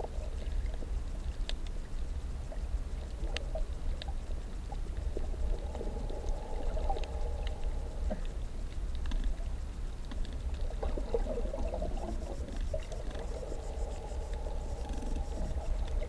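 Underwater ambience on a shallow coral reef: a constant low rumble under a droning hum that swells and fades in spells of a few seconds, with scattered faint clicks.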